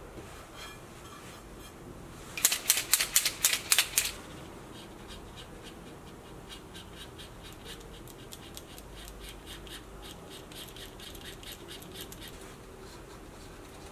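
Paint marker being shaken, its mixing ball rattling in a quick run of sharp clicks, about five a second, for about a second and a half. Faint quick ticking follows through most of the rest while the marker is worked on the wooden fuselage.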